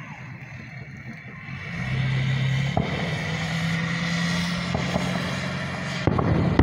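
A motor vehicle's engine running nearby, its steady low hum swelling about two seconds in. A firework bang near the end.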